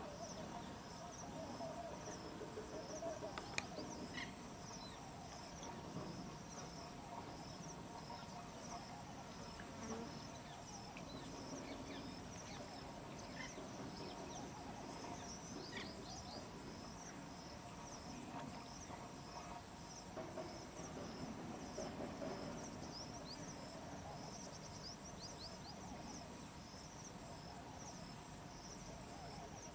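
Outdoor ambience dominated by insects: a high chirping that repeats a few times a second over a steady high whine. A few short falling chirps and a low background murmur sit beneath it, and there is one sharp click about three and a half seconds in.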